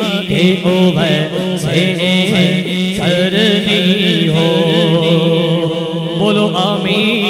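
A man chanting a naat, an Urdu devotional poem, into a microphone, his voice gliding through long drawn-out melodic lines over a steady low drone.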